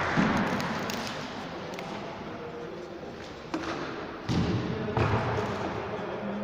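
Basketball game in an echoing gym hall: crowd noise fading over the first second or two, then three thuds, the ball bouncing on the wooden court, about three and a half seconds in and twice more over the next second and a half.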